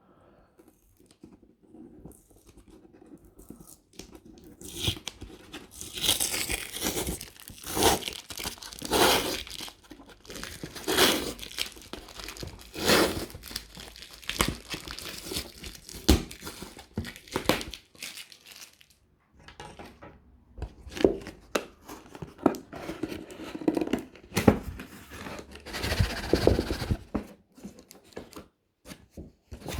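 Shipping packaging being torn open by hand: repeated short rips and crinkling of cardboard, tape and packing material, starting a few seconds in.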